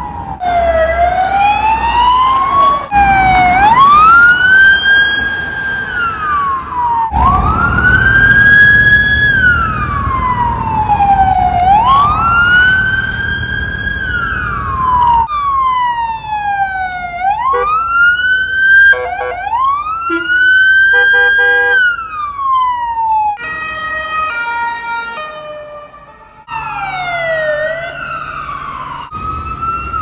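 Romanian ambulance sirens wailing, each slow rise and fall lasting about four seconds, in a run of separate recordings that cut abruptly from one to the next. In places two sirens overlap. For a few seconds near the end there is a stretch of stepped tones instead of the smooth wail.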